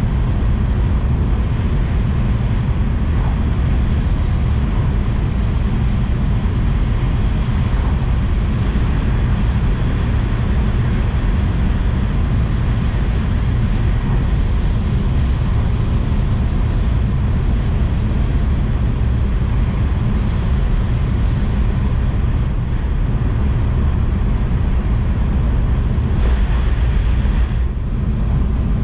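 Steady low rumble and hiss of a Tohoku Shinkansen high-speed train running at speed, heard from inside the passenger car. Near the end a brighter hiss swells for about a second and then drops off abruptly.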